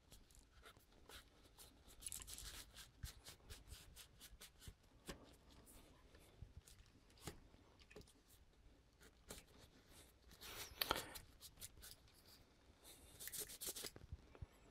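Faint rubbing of a cloth rag wiping loose, oily dirt off a revolver, with scattered light handling clicks. The rubbing comes in short scratchy spells, strongest about two seconds in, around eleven seconds and near the end.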